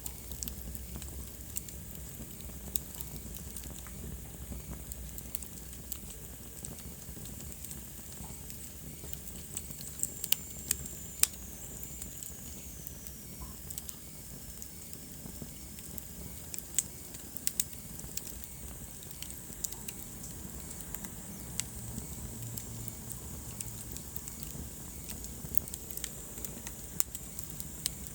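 Wood fire burning in a fireplace: a low steady rumble of flames with scattered sharp crackles and pops. A faint high whistle falls in pitch around ten seconds in.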